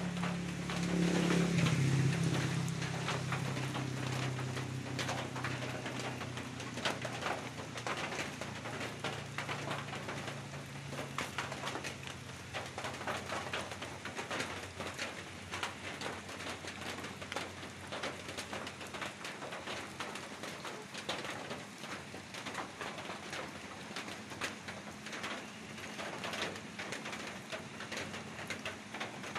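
Steady patter of rain falling on leaves and ground. A low hum is also heard at first and fades away by about halfway through.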